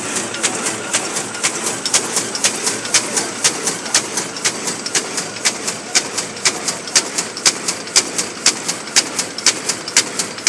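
Dakiou HBJ-D800 paper carton erecting machine running at speed: a steady mechanical clatter with a sharp click repeating about three times a second.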